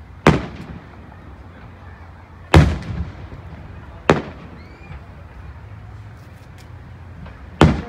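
Aerial firework shells bursting: four sharp booms spread a few seconds apart, each with a short echoing tail, the second the loudest.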